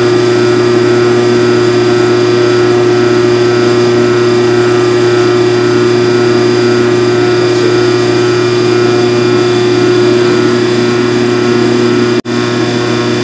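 Steady electrical hum of a Phase-O-Matic CNC rotary phase converter running to power the mill, a loud, even drone with a few fixed tones. It drops out for an instant near the end.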